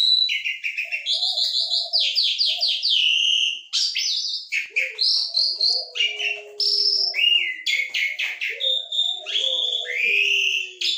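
Caged Asian pied starling (jalak suren) singing a long, chatty, varied song: rapid trills and repeated notes, clear whistles that glide up and down, and some lower gliding notes.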